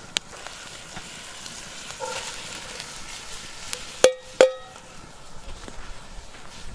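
Meat and onions sizzling in butter in a cast-iron dutch oven, with two ringing metal clanks about half a second apart, about four seconds in, as a utensil knocks against the pot.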